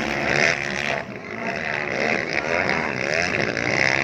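Several off-road motorcycle engines running at once, revving up and down so their pitches rise and fall and overlap, with a short dip in loudness about a second in.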